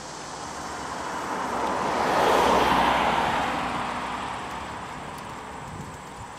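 A car driving past on the street, its noise rising to a peak about two and a half seconds in, then fading as it moves off.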